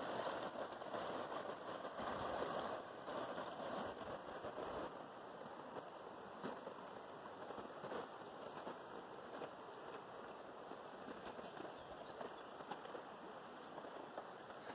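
River water flowing and rushing steadily, a little louder for the first few seconds and then even.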